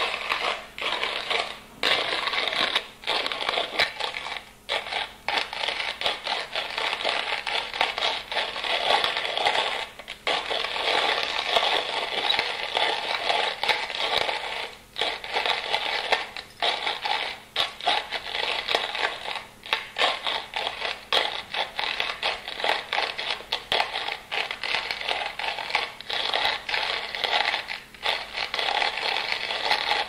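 A hand-cranked coffee grinder being turned, grinding coffee with a continuous scraping grind. The sound is broken by brief pauses every few seconds.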